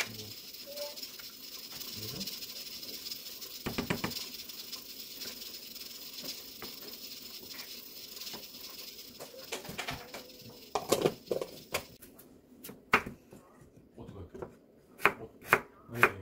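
Soybean paste stirred into water in an earthenware pot with a wooden spoon, a soft steady hiss with scattered clinks of the spoon. Then, about two-thirds of the way in, a kitchen knife starts slicing an onion on a wooden cutting board, sharp knocks coming about two a second near the end.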